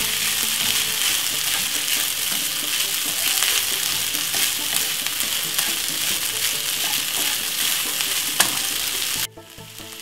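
Rice and vegetables sizzling in oil in a nonstick frying pan, with a wooden spoon scraping and turning them through the pan. The sizzle cuts off suddenly near the end, leaving a much quieter hiss.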